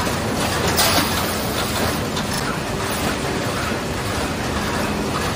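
Müller Martini Ventura MC book sewing machine running steadily, with a brief louder clack about a second in.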